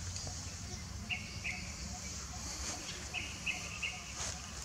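Outdoor ambience: a bird calling in short, repeated chirps, in pairs and threes, over a steady high hiss and a low rumble.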